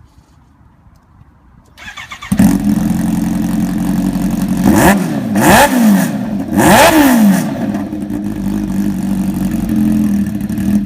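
Kawasaki H2's supercharged inline-four engine cranked on the starter and firing up about two seconds in, then idling loudly. It is revved twice in the middle, each rev rising and falling back to idle, and it cuts off at the end.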